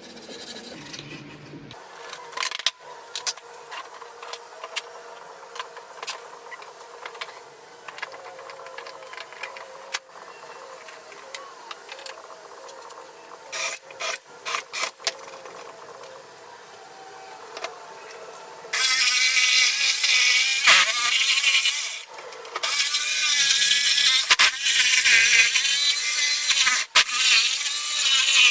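Scattered clicks and knocks of wood being handled, then a power tool running loud and steady from about two-thirds of the way through, with a short break a few seconds later.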